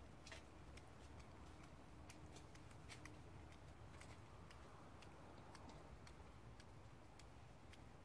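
Near silence broken by faint, crisp clicks at irregular intervals, several a second, from a hedgehog foraging at a steel feeding bowl among dry leaves and twigs.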